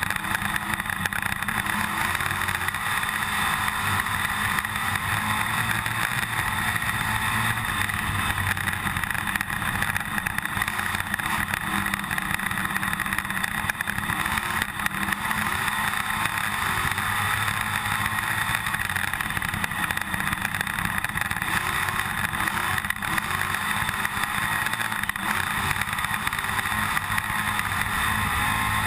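IMCA stock car's V8 engine running hard at race speed, heard from inside the cockpit, with a steady rattling over it.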